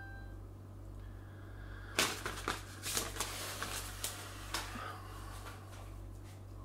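Sheet of paper crinkling and rustling in the hand: a cluster of crisp crackles between about two and five seconds in, over a steady low hum.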